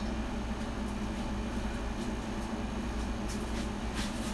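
Steady low electrical hum with a constant pitched tone, the drone of running equipment in the room. A few faint small ticks come near the end as fingers work the fan's small plastic wire connector.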